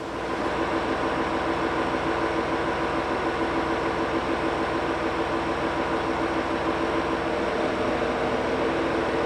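Diesel railcar running, a steady loud drone with several held tones over a noisy rumble. The tones shift slightly near the end.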